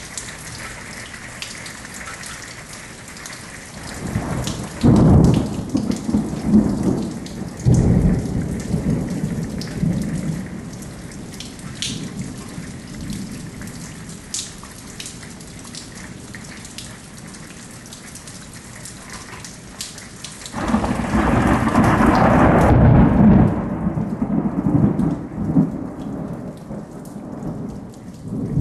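Steady rain with two long rolls of thunder, the first about four seconds in and the second near twenty seconds in.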